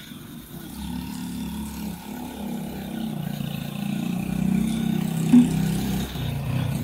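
A motor vehicle's engine running close by, growing louder over the first few seconds and holding before it falls away near the end, with one brief sharp sound about five seconds in.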